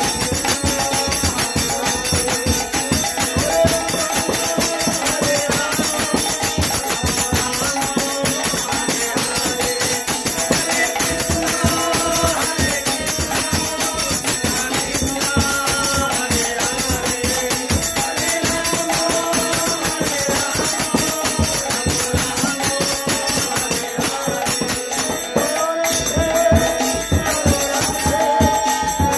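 Male voice singing a Bengali Hari-nam kirtan (devotional chant), accompanied by rapid, steady clashing of small brass hand cymbals (kartal).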